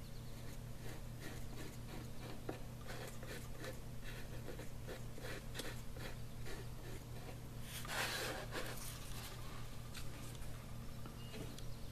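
A fingertip rubbing and pressing sanding dust into a small gap in a wooden kayak deck, working it in as a filler. It makes a faint scratchy rubbing with many small ticks over a steady low hum, and there is a louder brushing rush about eight seconds in.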